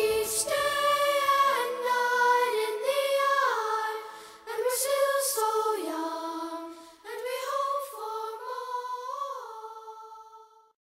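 Choir singing slow, held notes with no accompaniment, the phrases stepping up and down in pitch, fading out near the end.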